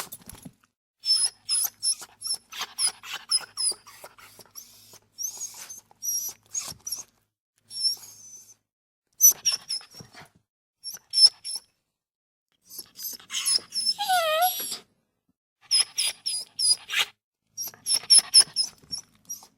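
Dog whining in clusters of short, very high-pitched squeaky whimpers with brief pauses between. About two-thirds of the way through comes one longer, lower whine that wavers up and down.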